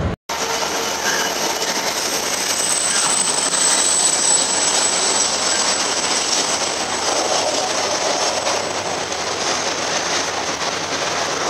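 Covered steel-coil wagons of a freight train rolling past close by: a steady noise of wheels running on the rails, with a thin high-pitched whine over it.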